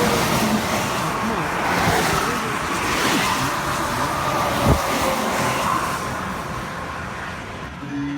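Road and engine noise inside a moving car, a steady rushing hiss, with a single sharp knock about halfway through.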